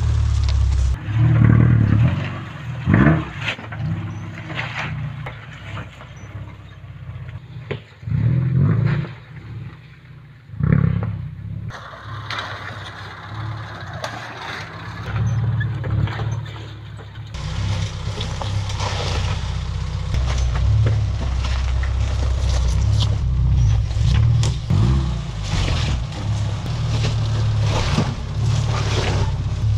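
Subaru's engine revving hard in surges, then running more steadily, as the car is driven over a rough off-road track, with scattered knocks and scrapes.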